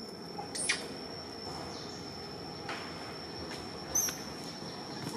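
Outdoor ambience with a steady thin high-pitched whine and two short, sharp high chirps, about a second in and again about four seconds in.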